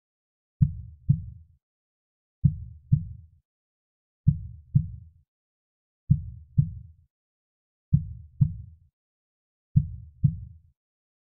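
Soft, slow heartbeat: a deep double thump, lub-dub, repeating about every two seconds, six beats, with silence between them.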